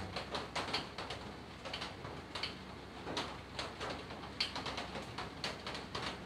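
Irregular light clicks and knocks of plastic parts being handled as round discs and their rubber mounts are pressed into the plastic base of a humidifier.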